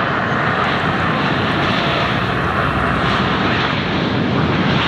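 Jet airliner engines running, a steady, loud rush of noise with no change in level.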